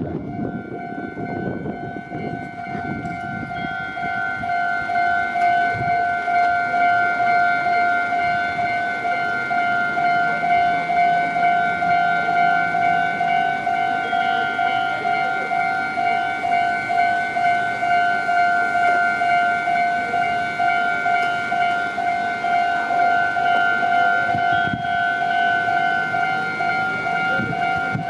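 Japanese electronic level-crossing warning bell ringing in a steady, evenly repeating two-tone pattern. A train's running noise is heard under it in the first few seconds.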